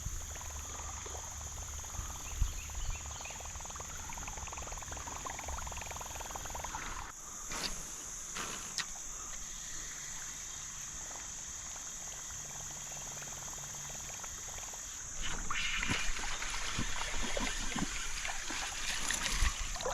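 Steady, high-pitched drone of insects calling, with a couple of sharp clicks about eight seconds in and a louder rush of noise from about fifteen seconds in.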